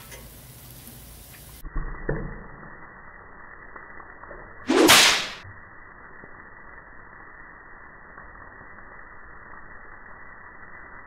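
A sharp whip-like crack about five seconds in, a 'bang' sound effect marking a squeeze bottle's top flying off. It sits over muffled griddle sizzle with a couple of light knocks about two seconds in.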